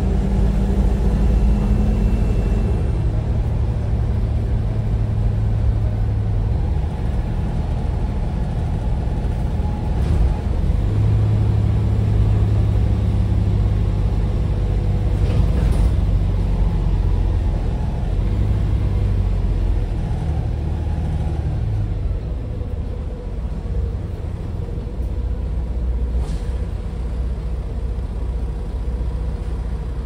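Diesel bus engine heard from inside the passenger saloon while under way, its low note swelling and easing as it pulls and backs off, with a faint turbocharger whine. Two short hisses cut through, around halfway and near the end.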